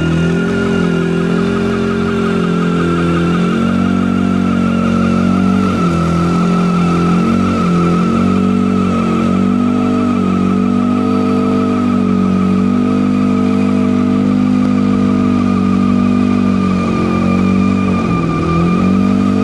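1967 Volkswagen Beetle's air-cooled flat-four engine held at high revs during a burnout, its rear tyres spinning with a steady high-pitched squeal that slowly drops in pitch. The engine note wavers briefly a few seconds in.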